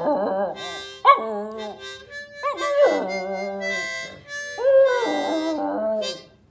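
A harmonica playing held chords while a miniature schnauzer howls along, its howls rising and falling in pitch over the notes. Both stop just before the end.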